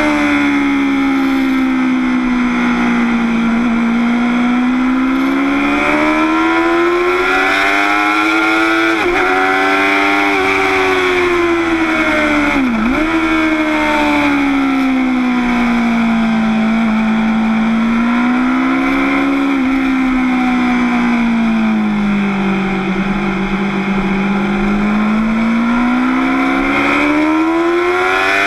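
Motorcycle engine running hard at track speed, heard from on board, its pitch slowly rising and falling as the throttle opens and closes through the bends, with two brief sharp dips near the middle. Wind rush on the microphone underneath.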